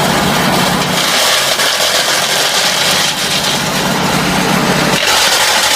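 An engine-driven machine running steadily, a low hum under a dense mechanical hiss; the hum drops away about five seconds in.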